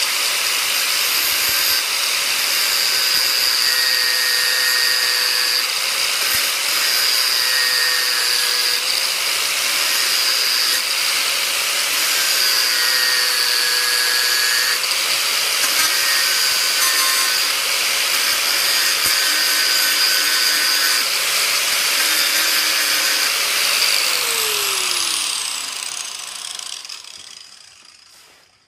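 Angle grinder with a sanding disc running steadily, grinding down a copper rivet head on a steel armor plate to thin it so the rivet can be punched out; the motor's whine wavers slightly under load. About 24 seconds in it is switched off and the whine falls away as the disc spins down.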